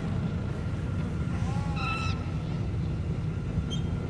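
Designed sci-fi desert-town ambience: a steady low rumble with a faint steady tone above it. About halfway through comes a short pitched call that arches up and down, and a small high chirp follows near the end.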